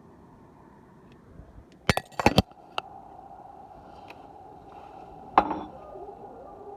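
A quick cluster of sharp knocks about two seconds in and one more about five and a half seconds in, over a faint steady hum.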